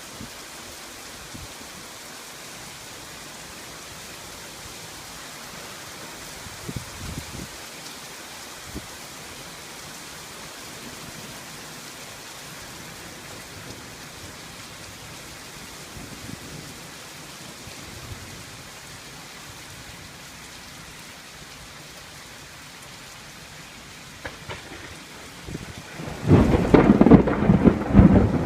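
Steady rain falling during a thunderstorm, with a couple of faint low thunder rumbles. Near the end a loud, close thunderclap breaks out suddenly and keeps rumbling.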